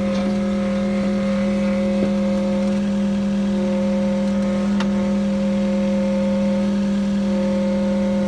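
Skid steer engine running steadily at one constant speed, a steady drone with a strong low hum. Two faint knocks come about two and five seconds in.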